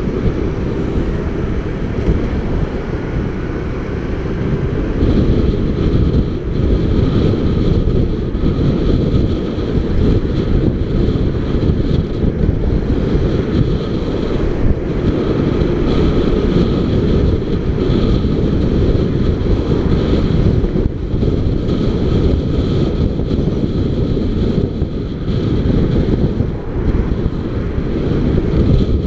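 Wind buffeting the microphone of a moving motorcycle in a steady, loud low rumble, with the bike's engine and road noise underneath.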